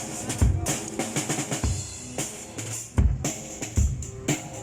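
A drum kit played loosely for a sound check: irregular bass-drum thumps with snare and cymbal hits, and a few held pitched notes underneath.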